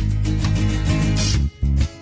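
Music with guitar over a heavy bass line; it cuts out abruptly about a second and a half in, leaving only a short low note.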